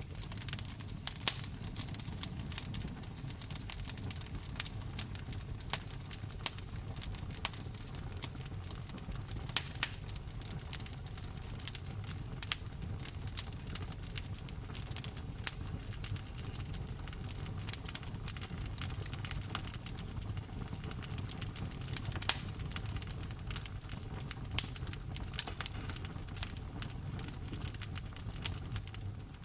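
Wood fire burning with a steady low rumble and constant irregular crackling, with a few sharper, louder pops.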